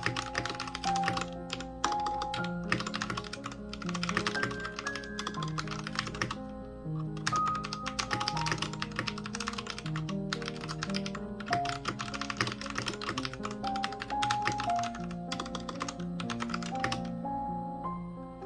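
Royal Kludge RK61 mechanical keyboard being typed on: fast runs of key clicks in several bursts with brief pauses, stopping near the end, over background music.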